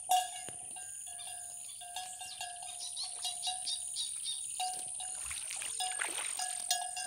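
Faint field ambience: a steady high-pitched insect drone, with a mid-pitched tone that repeats in short stretches and small scattered chirps.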